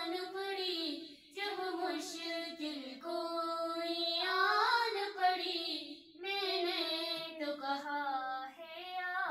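A girl singing an unaccompanied Urdu devotional song (manqabat) into a handheld microphone, in long held, wavering notes and melismatic phrases separated by brief pauses.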